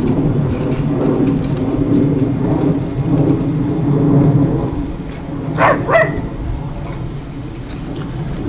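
Two short, sharp puppy barks in quick succession a little past the middle, over a steady low rumble.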